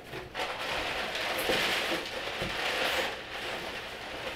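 Crumpled brown packing paper rustling and crackling as hands dig through it inside a cardboard shipping box, in a steady stretch that eases off near the end.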